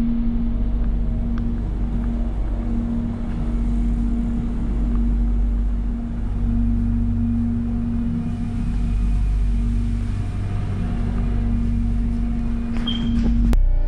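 Steady low rumble with a constant droning hum inside an electric airport train carriage. A short high tone sounds near the end.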